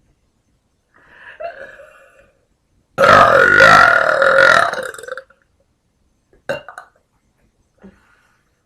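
A woman burping: a softer burp about a second in, then a long, loud burp lasting about two seconds, its pitch wavering, followed by a few short, faint sounds.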